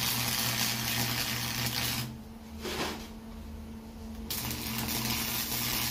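Stick (arc) welding on a galvanized-steel exhaust resonator's end-cap seam: the arc crackles and hisses steadily, breaks off about two seconds in, and strikes again a couple of seconds later until it stops near the end.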